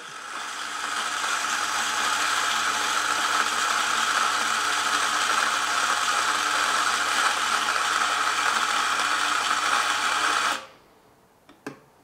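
La Marzocco Pico espresso grinder grinding a timed 18 g dose of coffee beans into a portafilter: a steady whirring grind with a low motor hum that builds over the first second or two, then stops abruptly near the end. A single light click follows shortly after.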